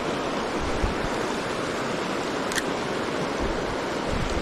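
Small river's water rushing steadily, with a few low thumps and one sharp click about two and a half seconds in.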